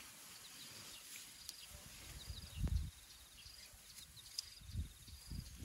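African elephant calf feeding on tall grass: a few low thumps, the loudest about halfway through and two softer ones near the end. Short high insect trills repeat in the background.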